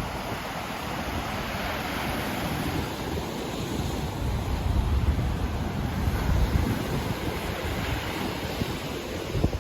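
Sea waves breaking and washing up the shore, the surf swelling to its loudest in the middle. Wind rumbles on the microphone, with a few low buffets near the end.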